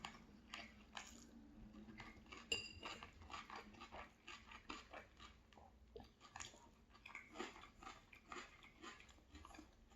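Faint, close-miked chewing of a mouthful of food: irregular soft wet clicks and crunches, two or three a second. A brief metallic clink of cutlery rings out about two and a half seconds in.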